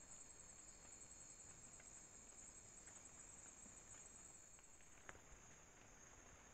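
Faint chorus of night insects, a steady high-pitched drone, with a few soft ticks and a single click about five seconds in.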